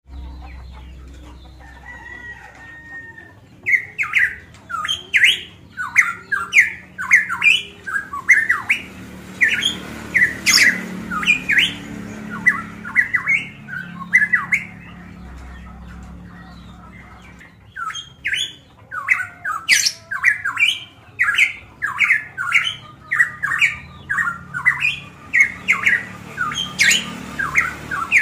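A caged pitohui (cucak emas Papua) calling loudly in long runs of quick, sharp notes, about three a second. The runs break off for a couple of seconds in the middle and then start again.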